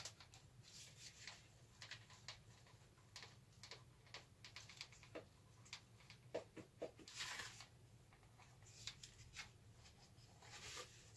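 Faint scattered clicks, taps and rustles of the VW Squareback's fresh air blower housing being handled and turned over, with a slightly longer scrape or rattle about seven seconds in.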